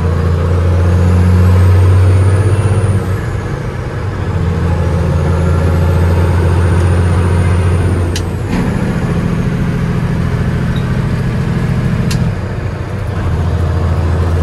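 Big-cam Cummins inline-six diesel of a 1989 Peterbilt 379 pulling under load, heard from inside the cab. The engine note drops off briefly three times as the 18-speed Eaton Fuller is shifted between gears. A short click comes just before the last two shifts.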